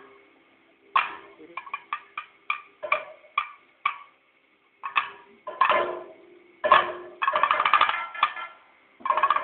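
Kathakali percussion accompaniment: sharp single drum strokes with a metallic ringing, spaced irregularly at first, then breaking into fast dense drum rolls about seven seconds in and again near the end.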